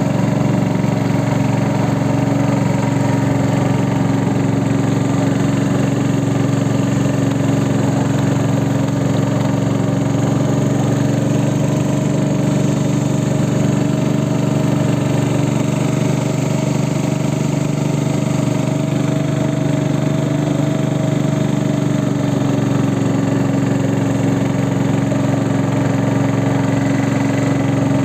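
Boat engine running at a steady speed, an even drone that holds the same pitch throughout.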